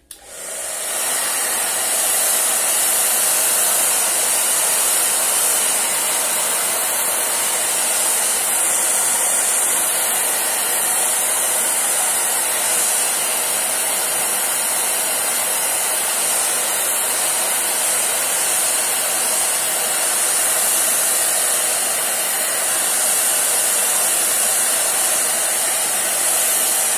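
Handheld hair dryer switched on, coming up to speed within about a second and then blowing steadily, drying a wet watercolour wash on paper.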